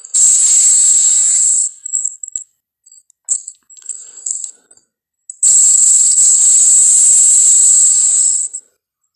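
Indoraptor creature sound effect: two long hissing rattles, the first about a second and a half long and the second about three seconds long, with short rattling clicks between them.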